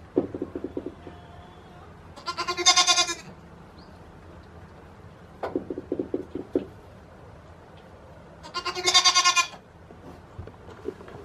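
A goat bleats twice, loud and quavering, about six seconds apart. Before each bleat comes a short run of low, stuttering grunts.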